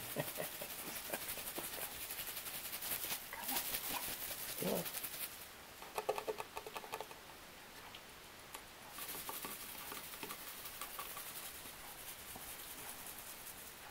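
Five-week-old Bengal kitten playing on a fleece cat bed: fabric rustling, with scratches and soft pats from its paws and claws in irregular bursts. A brief rasping sound comes about six seconds in.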